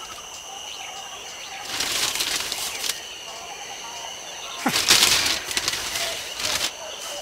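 Newspaper rustling as it is handled, over a steady high hum. A louder sudden sound with a sharply falling pitch comes in about five seconds in.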